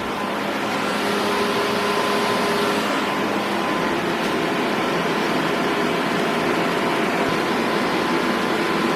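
A machine running steadily: an even rushing noise with a faint steady hum over it, swelling slightly about a second in.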